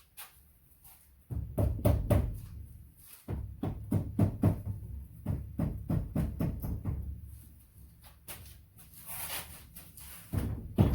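Repeated knocks and thuds on metal engine parts, several a second, with two short pauses, as the ATV engine is tapped and worked apart during teardown.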